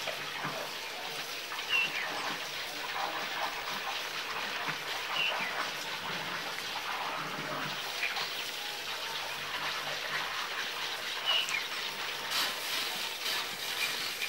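Steady outdoor hiss with a few short, high chirps several seconds apart.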